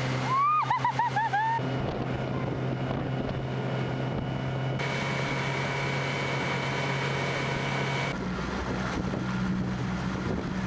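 Motorboat engine running steadily while towing, under wind and water noise; the hum shifts in pitch about eight seconds in. Near the start a quick run of about six short, high squeals.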